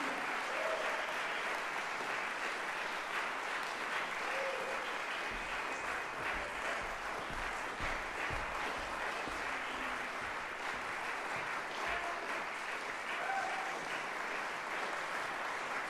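Audience applauding steadily, with a few low thumps in the middle.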